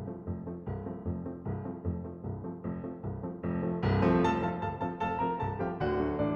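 Background music led by piano, a run of struck chords that grows fuller and louder about four seconds in.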